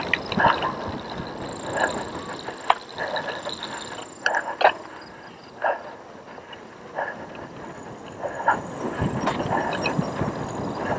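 Cyclocross bike ridden over bumpy grass and dirt: the bike rattles and knocks irregularly over the bumps, over a steady rush of tyre and riding noise.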